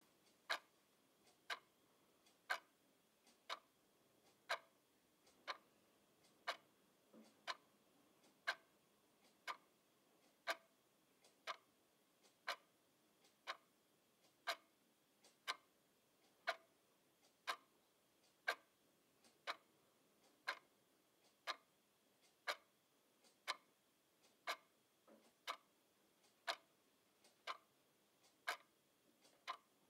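Quartz twin-bell alarm clock ticking, one sharp tick a second.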